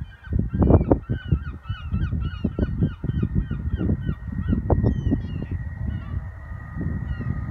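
A flock of geese honking, many short calls overlapping in quick succession and thinning out near the end, with wind buffeting the microphone.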